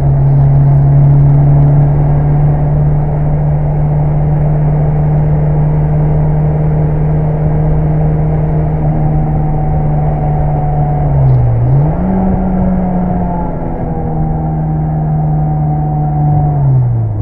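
Mitsubishi Lancer Evolution VI Tommi Mäkinen Edition's turbocharged four-cylinder engine running hard at steady high revs. About eleven seconds in the engine note briefly drops and comes back higher, then slowly falls, and it dips and recovers again near the end.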